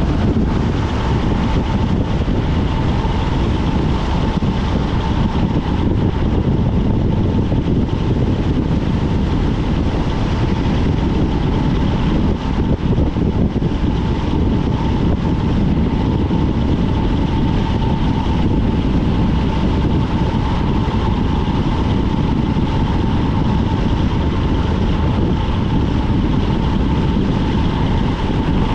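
Wind rushing over a bike-mounted camera's microphone at speed on a road-bike descent, mixed with tyre roar on asphalt, with a thin steady whine on top.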